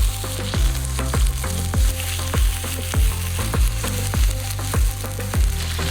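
Tiger prawns sizzling and frying on a camping griddle, under background music. The music has a steady beat a little under two thumps a second, and the beat is the loudest thing heard.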